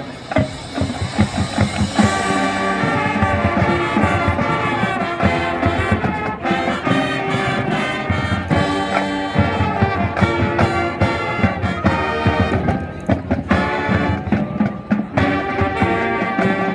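Marching band playing: the drums play alone for about two seconds, then the brass comes in with held chords over the drums.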